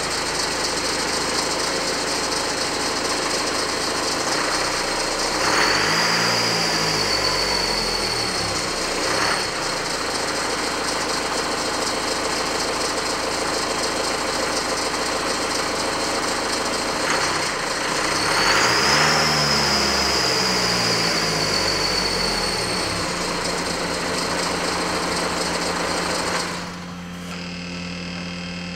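BMW N47 2.0-litre four-cylinder turbodiesel running at idle, revved briefly twice, then switched off about two seconds before the end, leaving a low hum.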